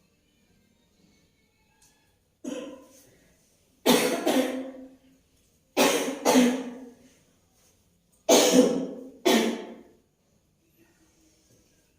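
A woman coughing loudly: one weaker cough, then three pairs of harsh coughs a couple of seconds apart. It is the persistent cough that has not cleared up.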